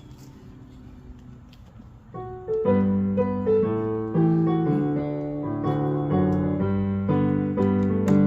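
Piano introduction to a hymn starting about two seconds in: a single note, then sustained chords over a bass line, after a faint low hum.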